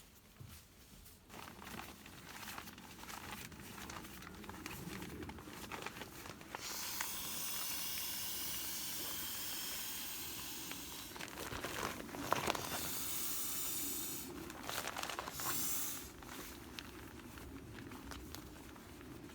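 Rustling and crinkling, as of gear or packaging being handled, with two stretches of steady hiss lasting a few seconds each, the first starting about a third of the way in.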